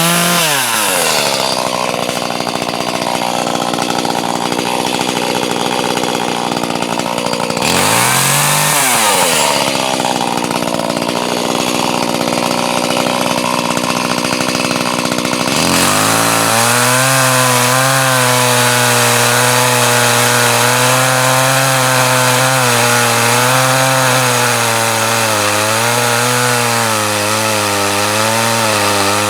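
Chainsaw cutting wood. The engine pitch sweeps up and back down twice in the first nine seconds or so. From about halfway it runs steadily at a lower pitch that wavers up and down through a long cut.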